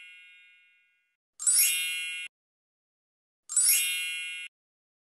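Bright, high-pitched bell-like ding sound effect, struck twice about two seconds apart, each ringing for about a second and then cut off abruptly. In the first second the tail of an earlier ding fades out.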